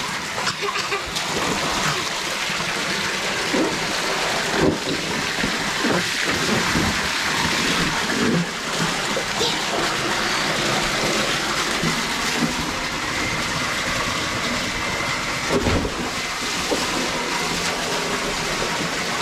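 A jet of water from a garden hose splattering steadily into a filled inflatable pool, with a child splashing and kicking in the water; a few louder splashes stand out.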